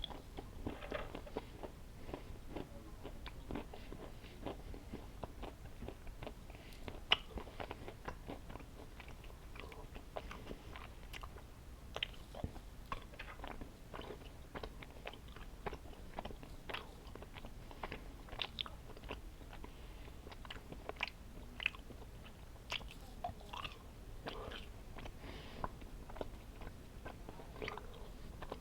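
A person chewing chewy gummy candy, with many small, irregular mouth clicks.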